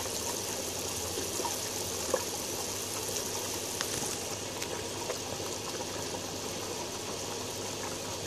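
Water in an aquaponics system running steadily, with a low pump-like hum underneath and a few faint ticks.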